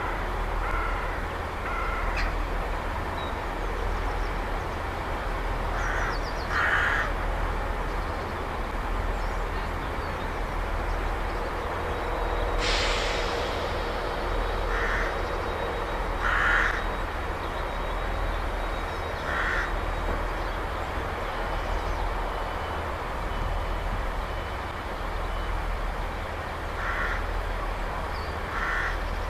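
Crows cawing in short single calls, about seven times, over the steady low rumble of a Class 158 diesel multiple unit idling. About halfway through there is a short burst of hiss.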